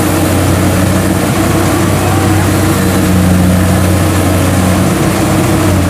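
Kubota DC70 rice combine harvester's diesel engine running steadily with a low, even hum, working hard as the machine struggles to climb over a high field bank.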